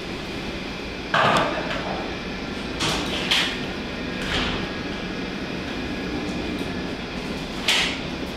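Steady hum of operating-room equipment and ventilation, broken by several brief handling noises, the loudest a little over a second in and near the end.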